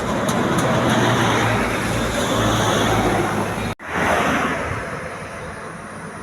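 Road vehicle passing close by: engine hum and tyre noise swell, break off abruptly for an instant just under four seconds in, then fade away. No horn is sounded.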